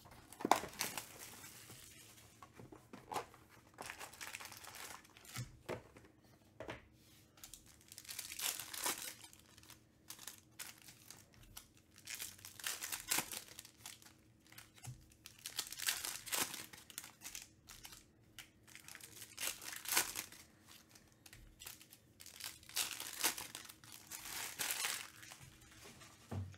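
Foil trading-card pack wrappers being torn open and crinkled, in repeated bursts every few seconds, with the sharp clicks of cards and packs being handled.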